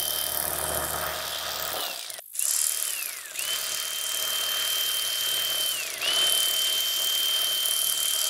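Electric fillet knife trimming the bloodline from a striped bass fillet, its motor running in bursts. Each burst is a steady high whine that winds down when the knife is switched off and comes back up to speed, several times over, with a brief pause about two seconds in.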